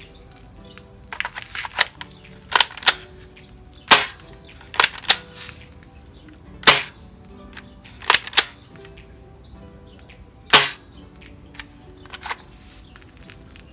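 Open-bolt spring airsoft rifle being cocked and fired repeatedly: sharp plastic clacks and snaps, some in quick pairs, with a louder shot every few seconds.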